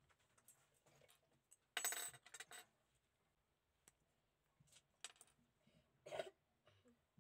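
A flat metal tool clicking and scraping against a small painted diecast metal part while plastic pieces are pried off it, in short separate clinks. There is a louder clatter of clicks about two seconds in and another burst about six seconds in.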